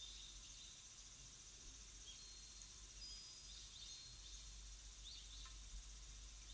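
Faint birdsong: scattered short chirps and thin whistled notes over a steady hiss and a low hum.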